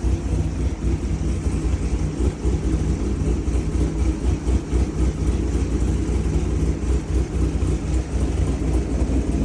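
Chevrolet Corvette C7 Grand Sport's 6.2-litre V8 running unevenly with a cylinder 7 misfire, 'just spitting'. The owner does not know whether the injector, coil or plug is at fault.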